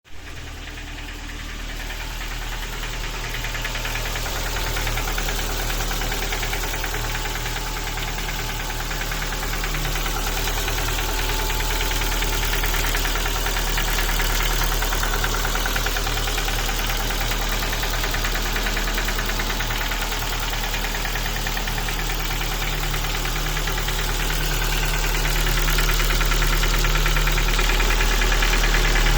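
Ford Focus Mk2 1.6 engine running with a rapid, steady knock, the sign of broken piston pins. It gets louder over the first few seconds, then holds.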